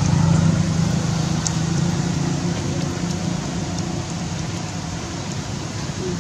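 A motor vehicle engine hums steadily and fades away over the first few seconds, over a steady outdoor hiss.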